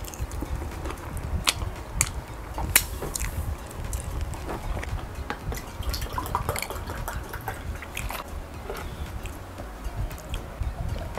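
Close-up eating sounds from a mouthful of fufu and okro soup: wet chewing with a few sharp mouth clicks in the first three seconds. About six seconds in, orange drink is poured from a plastic bottle into a glass, then sipped.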